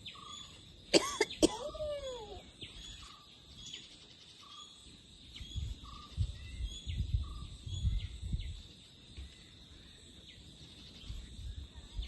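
A person's sudden, forceful burst of breath about a second in, three sharp strokes ending in a falling voiced cry, a reaction to the sting of snuff in the nose. Small birds or insects chirp faintly about once a second, with low rumbles on the microphone later on.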